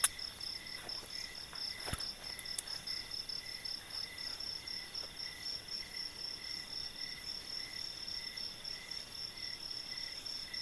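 Night insects chirping steadily: a fast, high pulsing trill over a lower chirp that repeats two or three times a second. There are a couple of sharp clicks at the very start and about two seconds in.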